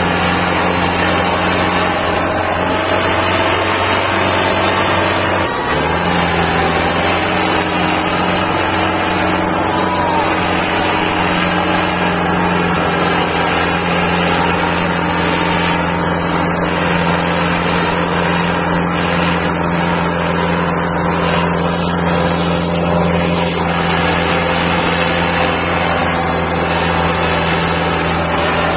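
HMT 6522 tractor's diesel engine running hard at high, steady revs under load, with its note shifting about six seconds in.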